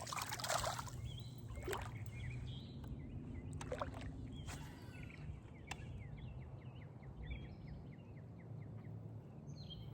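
Water splashing briefly at the start, then a steady low wash of water with a few sharp knocks, while a bird chirps short notes over and over, about three a second, from a few seconds in.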